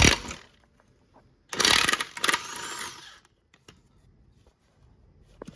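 Power tool, likely an impact wrench, loosening the lower bolt of a Nissan 240SX's rear coilover: a brief burst right at the start, then a longer burst about a second and a half in that fades out within about a second and a half.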